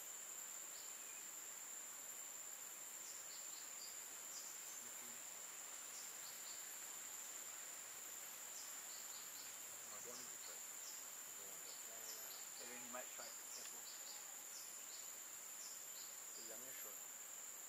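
Steady high-pitched drone of forest insects, with short high chirps repeating irregularly over it. Faint distant voices come through briefly near the middle and again near the end.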